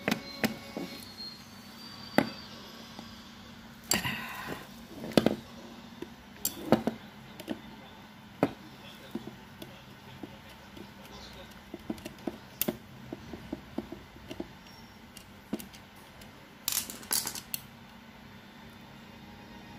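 Scattered sharp clicks and clinks of a screwdriver and small metal parts against an electric fan's motor housing as it is worked on by hand, with a short cluster of taps near the end.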